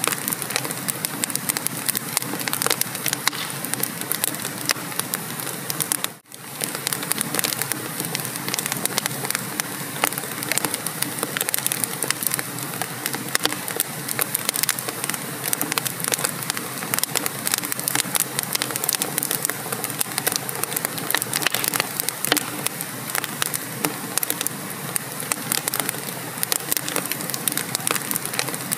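Wood fire burning in a fireplace, a steady stream of irregular crackles and pops over a soft rushing hiss. The sound cuts out for an instant about six seconds in, then carries on.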